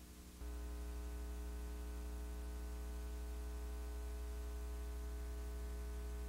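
Steady electrical mains hum with a stack of even overtones, and no game sound. It jumps louder about half a second in, then holds unchanged. It is the hum of the recording or transfer equipment left where the soundtrack is missing.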